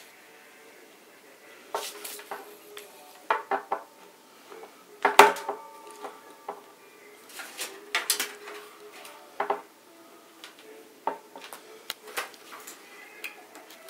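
Scattered metal clinks and knocks from hands working inside a PC case, handling its parts and fittings. The loudest clink comes about five seconds in.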